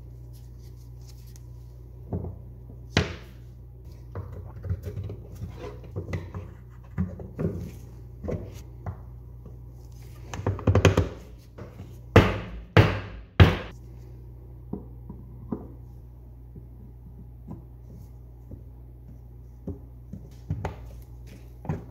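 Wooden doll-bed parts (dowels, rails and a painted wooden panel) being handled and fitted together: scattered light wooden clacks and knocks, a flurry of handling noise about halfway, then three sharp knocks in quick succession. A steady low hum runs underneath.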